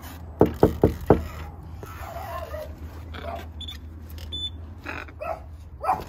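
Four quick knuckle knocks on a wooden front door, followed a few seconds later by muffled dogs barking from inside the house.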